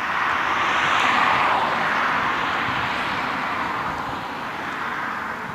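A car driving past, its tyre and engine noise swelling over the first second and then slowly fading away.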